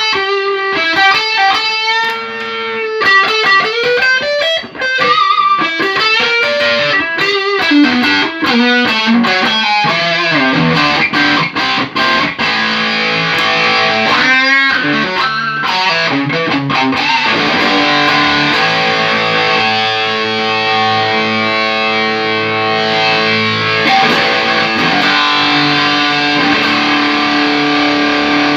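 Electric guitar played through a Tech21 SansAmp GT2 amp-simulator pedal, with the pedal working again after its repair. It opens with single-note lead lines and string bends, and about halfway through moves to held, distorted chords that ring on.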